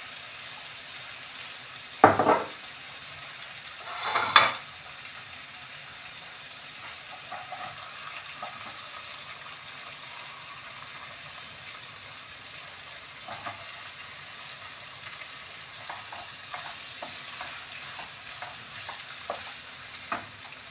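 Sliced onions and capsicum frying in hot oil in a kadai: a steady sizzle, with two loud bursts about two and four seconds in. Short scrapes and taps of a wooden spatula stirring the pan follow later.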